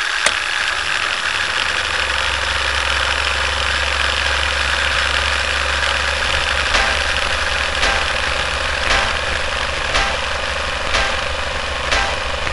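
Film projector running: a steady mechanical whir with a fast fluttering clatter. From about seven seconds in, a sharp click comes about once a second, in time with a countdown leader.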